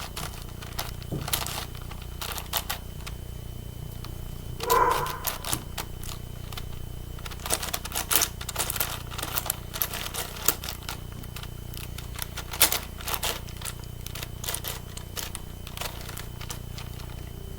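A 9x9 Rubik's cube being turned by hand: irregular plastic clicks and scrapes as layers are twisted during the final edge-parity stage. A brief hum sounds about five seconds in.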